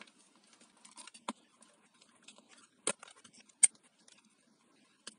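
Hard plastic parts of a hand blender clicking and knocking as the motor assembly is worked loose from the housing by hand, with four sharp clicks, the loudest about three and a half seconds in.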